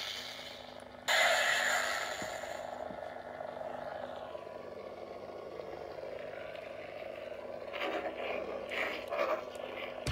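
Nano Biscotti V4 lightsaber soundboard in a Korbanth DM1 Darth Maul hilt: an ignition sound about a second in, fading into a steady electronic hum. Near the end the hum swells and wavers in a few swing sounds as the hilt is moved.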